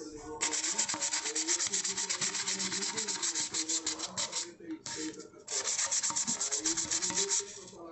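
A hand-held sheet rubbed rapidly back and forth against the side of an aluminium milk can, a fast scratchy scrubbing that pauses briefly in the middle and then resumes.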